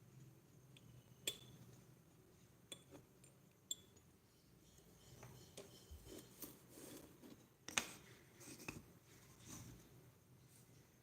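Light taps and clinks of miniature kitchen utensils and cookware, scattered and irregular, the sharpest about a second in and again near eight seconds, with softer handling sounds between.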